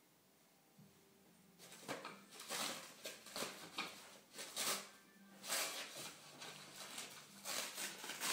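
A paper towel being pulled off its roll and crumpled by hand: a run of irregular crinkling, rustling bursts that starts about two seconds in.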